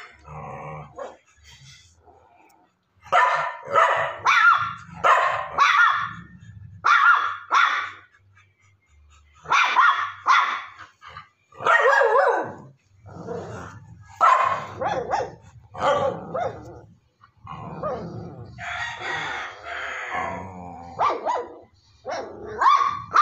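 Dog barking repeatedly, in runs of quick, fairly high barks, with a longer drawn-out call a little past the middle.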